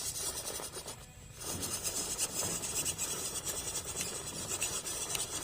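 MN-99 1:12 scale RC car driving over rough ground, a steady scratchy hiss of its small drivetrain and tyres that dips briefly about a second in, then comes back louder.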